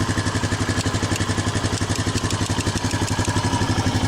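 Honda Foreman 500 ATV's single-cylinder engine idling steadily with an even, fast pulse.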